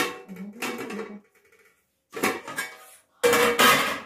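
Stainless steel pan lid clanking and ringing against the pan as it is handled and lifted off, in about four separate clatters, the loudest near the end.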